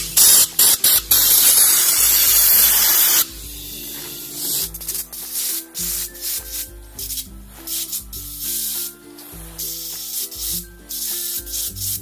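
Compressed-air hose blowing a fire detector clean: a few short blasts, then a steady hiss of about two seconds that cuts off suddenly about three seconds in, followed by many quick short puffs. The air is being used to clear dust from a detector the alarm panel reports as a dirty sensor.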